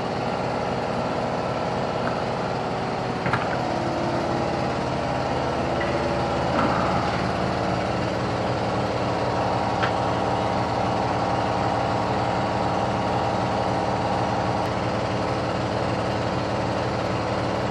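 A machine running steadily with an even, engine-like hum whose tone shifts slightly a few seconds in, with a few light clicks over it.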